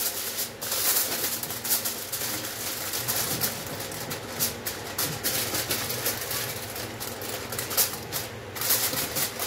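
Aluminium foil crinkling and crackling as hands press and crimp it tightly around the rim of a pot, sealing it airtight for dum steaming.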